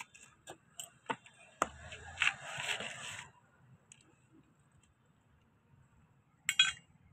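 Metal hand tools being handled on a concrete floor: a few light clicks and knocks, a rustling scrape, then one sharp metal clank near the end.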